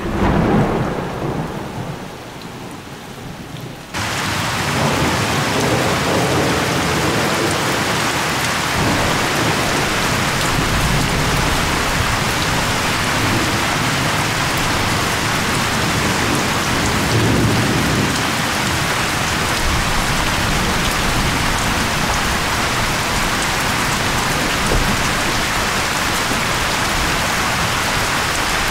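Storm wind blowing hard across the microphone. After a quieter first few seconds, a dense, steady rushing noise starts abruptly about four seconds in and holds, with occasional low rumbles.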